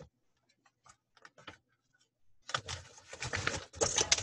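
A few faint clicks, then about two and a half seconds in a plastic bag starts rustling and crinkling as a cross-stitch kit is pulled out of it.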